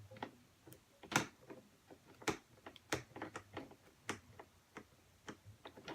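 Squishy toys being rummaged through and handled, giving irregular light clicks and taps, a few of them sharper, with no steady rhythm.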